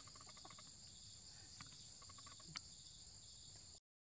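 Faint, steady high-pitched drone of a forest insect chorus, with short trains of rapid chirps near the start and about two seconds in and two sharp clicks. The sound cuts off abruptly just before the end.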